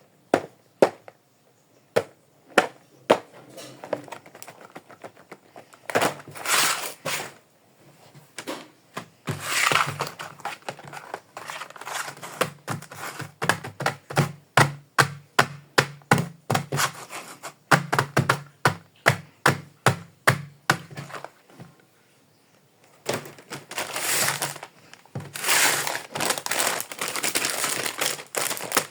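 Small plastic toy kitchen pieces clicking and tapping, with stretches of crinkling plastic packaging. Partway through comes a run of quick, even taps, about two to three a second, lasting some twelve seconds.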